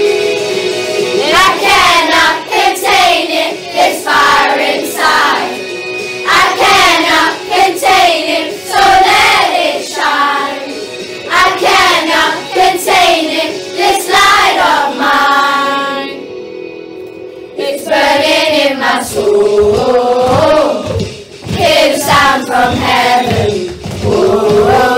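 A group of children singing a worship song with musical accompaniment. The voices break off for a moment about two-thirds of the way through while a held chord carries on, then come back in.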